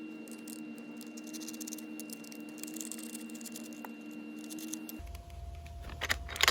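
Light clicks and rattles of a 4 mm Allen wrench working the roof-rack bracket bolts loose, over a steady hum. Sharper metal clicks come near the end.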